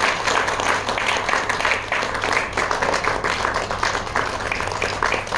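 Applause: many hands clapping steadily together.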